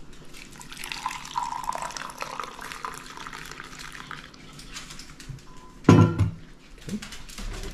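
Coffee poured from a stainless steel thermal carafe into a mug, a stream of liquid filling it for about four seconds. About six seconds in comes one loud knock.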